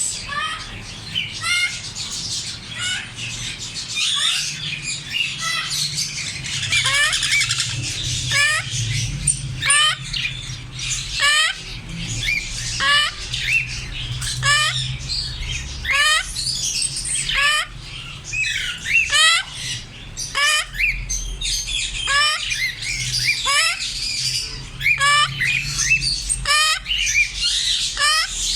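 African grey parrots calling: a continuous run of short squawks and upward-sweeping whistles, one or two a second and sometimes overlapping.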